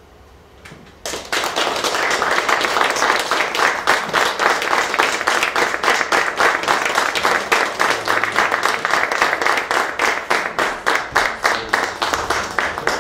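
Theatre audience applauding. The applause breaks out suddenly about a second in, and near the end the separate claps stand out more clearly.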